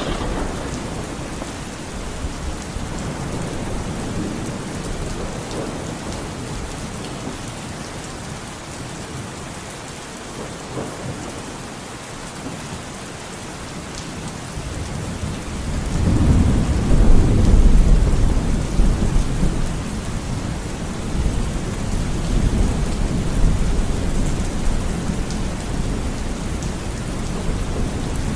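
Steady rain with rolling thunder. About halfway through, a louder thunder rumble builds, peaks a couple of seconds later, and then keeps rumbling more softly.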